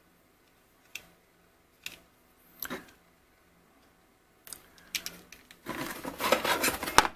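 Three faint clicks as a small plastic case and metal hex key are handled, then packaging rustling and scraping as a hand reaches into a cardboard box. The rustling grows louder over the last couple of seconds.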